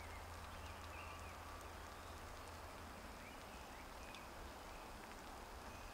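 Quiet woodland ambience: faint, scattered short bird chirps over a low steady background hum, with a few soft ticks.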